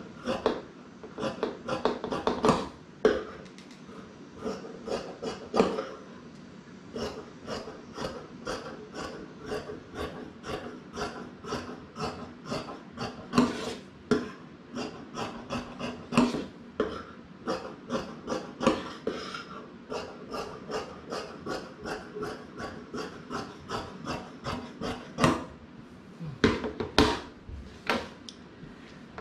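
Fabric shears snipping through cloth in a steady run of short cuts, a few a second, as seam allowances are trimmed off. A few louder knocks near the end.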